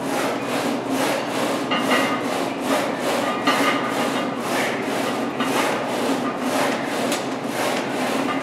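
Plate-loaded angled leg press sled sliding along its rails under load, a rhythmic rubbing scrape of about three pulses a second.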